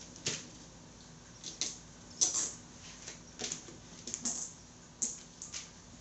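Nylon zip tie being ratcheted tight around a motorcycle tire to hold its beads together, in a series of short, irregularly spaced clicky zips.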